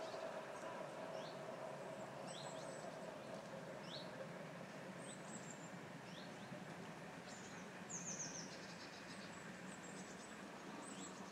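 Small songbirds calling: short rising chirps repeated every second or two, with a brief trill about eight seconds in. A steady low hum lies underneath.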